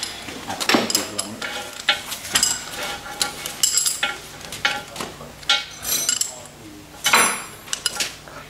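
Repeated metallic clinks and scrapes of a spanner, nuts and steel wire-rope clips being handled on a steel towing cable.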